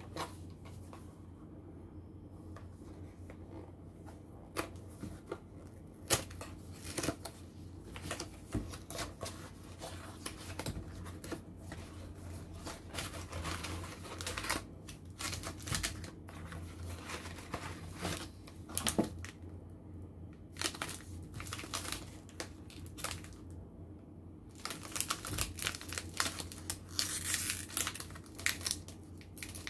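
Cardboard snack carton and its wrapped wafer packs being handled: scattered taps, clicks and rustles. In the last few seconds, denser crinkling as a crimped wafer wrapper is torn open.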